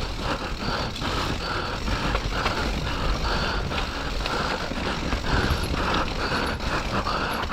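Mountain bike riding down a wet, muddy trail: a continuous rattle and clatter from the bike over rough ground, with many small clicks and wind rumbling on the microphone.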